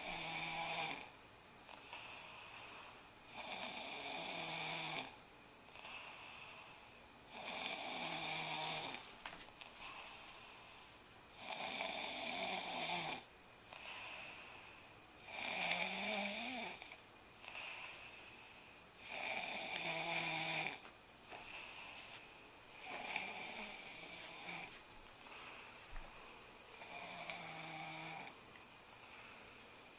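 Snoring in a steady rhythm, about one breath every four seconds, each loud snore followed by a softer breath.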